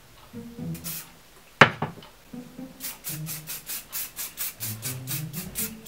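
Hairbrush strokes rasping through hair, fast and even at about five strokes a second, starting about three seconds in. A single sharp knock about one and a half seconds in is the loudest sound.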